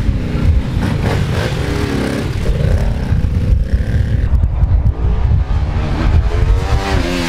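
Motorcycle engine being revved and ridden hard, its pitch rising and falling several times over a heavy low rumble.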